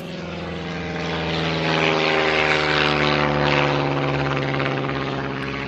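A de Havilland Tiger Moth biplane passing overhead: its propeller engine drones steadily, growing louder to a peak about halfway through, then fading as its pitch drops slightly.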